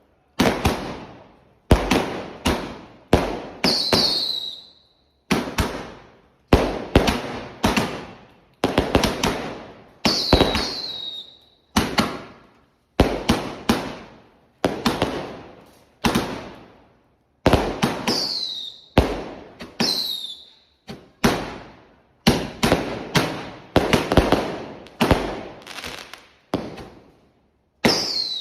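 Fireworks going off: a long run of sharp bangs, often several in quick succession, each fading out over about a second, with a short falling whistle after a few of them.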